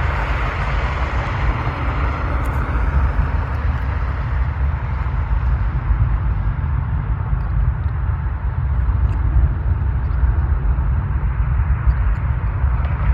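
Jet airliner departing at takeoff power: a steady, loud engine roar over a heavy low rumble, coming in suddenly at the start.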